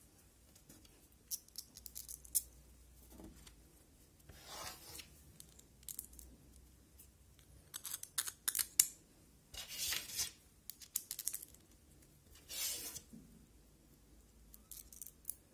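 Light metallic clicks and short scrapes as a steel bolt is fitted through a cutter blade's hole and washers are slid onto it. The clicks come in scattered clusters, busiest a little past the middle.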